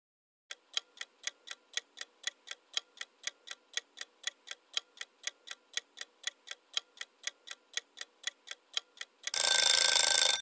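Ticking-clock countdown timer sound effect: even ticks, about four a second, alternating louder and softer. About nine seconds in it gives way to a louder ringing sound lasting about a second, marking the end of the answer time.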